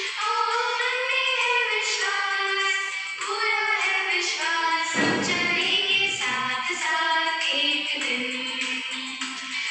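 A woman singing a slow prayer song, holding each note and stepping from pitch to pitch.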